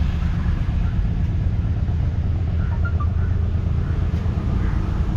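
Steady low engine rumble running close by.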